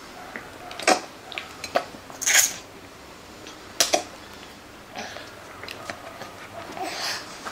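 A pet eating a biscuit: a handful of irregular sharp clicks and short crunches, with clinks like a dish being knocked.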